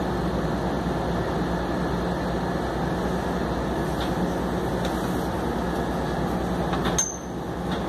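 Steady running hum inside the cab of a Yui Rail monorail moving slowly along a station platform. About seven seconds in, the hum drops abruptly, with a brief high chirp.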